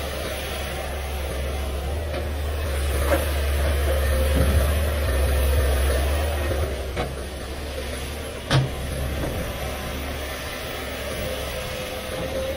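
Komatsu PC500LC hydraulic excavator's diesel engine running with a steady hum, working harder for a few seconds as the loaded bucket lifts and swings to the truck. A few short knocks, the loudest a little past halfway.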